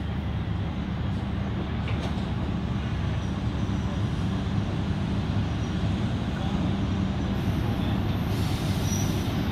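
Tulloch DRC40 600 hp diesel railcar creeping along the track, its diesel engine running with a steady low drone that grows a little louder as it approaches.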